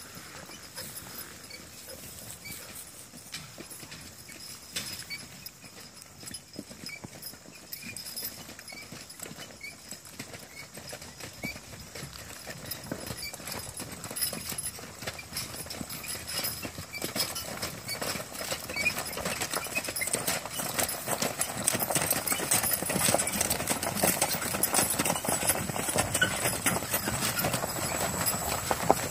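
Hoofbeats of a team of two Clydesdale draft horses walking on grass while pulling a wagon, growing steadily louder from about halfway through as the team comes close.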